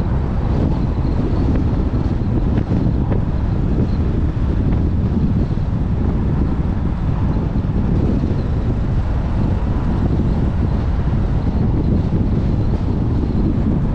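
Strong wind buffeting the microphone: a loud, steady, rough rumble.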